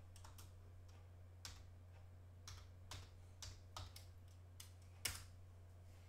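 Faint computer-keyboard typing: about nine separate keystrokes at an uneven pace, with a louder final keystroke about five seconds in, over a low steady hum.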